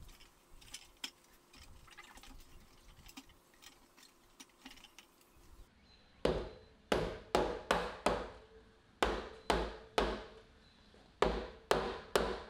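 About halfway through, a run of sharp knocks comes in three quick groups of several strikes each, as aluminum balusters are fastened into a wooden deck railing with a handheld driver. Before that there are only faint handling clicks.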